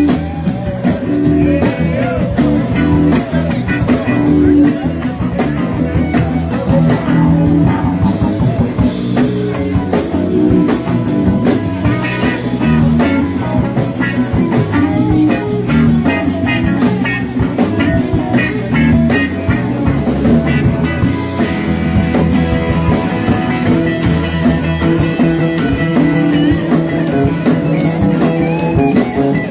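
Live rock band playing an instrumental jam: guitar lines over a drum kit, with a steady beat and no singing.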